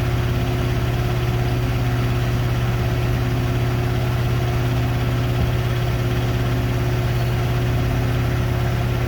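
Hoover Nextra Iconic and Beko WDER washing machines in their final spin, drums turning at high speed with a steady hum and whir.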